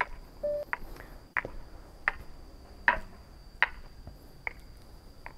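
Footsteps of someone walking at a steady pace on hard ground, a sharp click about every three-quarters of a second, over a faint steady high-pitched tone.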